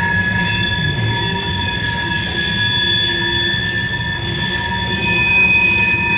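Wheels of a CSX freight train of tank cars squealing as it rolls past: several steady high-pitched squeals over the low rumble of the cars, with another squeal joining about five seconds in.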